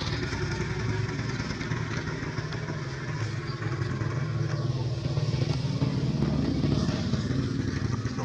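A small engine running steadily, getting somewhat louder about five seconds in and easing off near the end.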